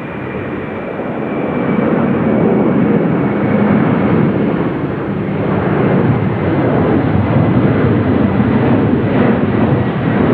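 Boeing 747-400 jumbo jet climbing out after takeoff, its four turbofan engines at climb power giving a deep rumbling roar that grows louder over the first two seconds and then stays loud and steady. A faint high engine whine fades out early on.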